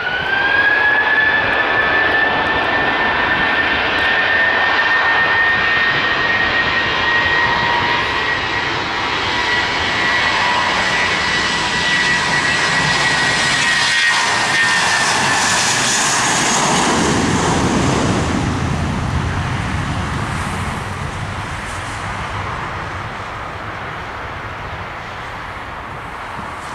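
Airbus A320-232's two IAE V2500 turbofan engines spooling up for takeoff: a whine rises in pitch right at the start and settles into a steady high whine. About two-thirds of the way through, a lower jet noise swells as the airliner passes on its takeoff roll, then fades as it moves away down the runway.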